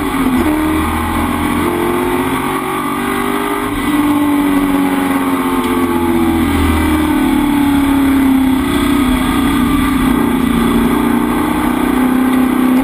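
Ford XE Falcon race car's engine running hard at racing speed, heard from inside the stripped-out cockpit. Its pitch dips and climbs near the start, rises again about four seconds in, then eases down slowly.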